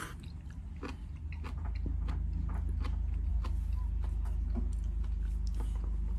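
Light clicks and taps of lacquered tableware being handled and set down on a wooden table, scattered and irregular, over a steady low hum that grows louder about two seconds in.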